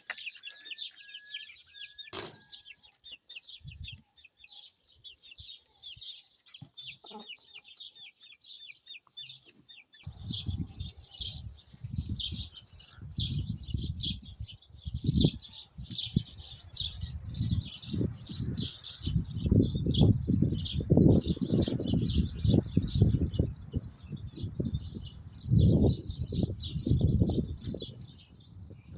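A crowd of small birds chirping and chattering without pause. From about a third of the way in, gusts of wind rumble and buffet the microphone, strongest toward the end.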